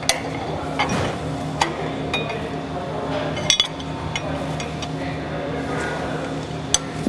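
Steel wrenches clinking against the router's collar and spindle as the collar is loosened to change the bit: a few separate sharp metal clinks over a steady background hum.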